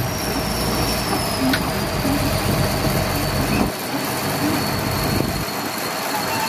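Bulldozer working, its engine running with steel crawler tracks clanking and squealing; the low engine rumble drops away a little over halfway through.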